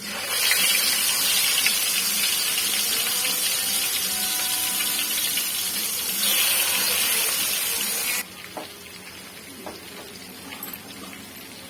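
Loud sizzle and crackle of food frying in hot oil in a pan, steady until it cuts off suddenly about eight seconds in, leaving a much quieter hiss.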